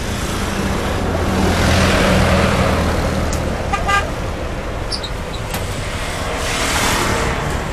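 Willys jeep engine running under a camera on its hood, the low hum swelling over the first couple of seconds, with steady road and wind noise. A vehicle horn gives a short toot about four seconds in.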